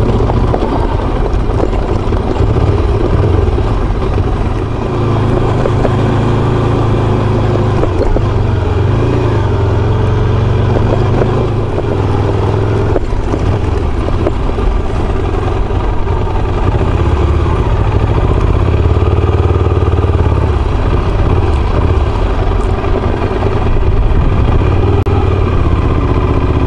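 Motorcycle engine running steadily under way, its pitch shifting a little as the throttle changes, with a couple of brief knocks from the ride over rough ground.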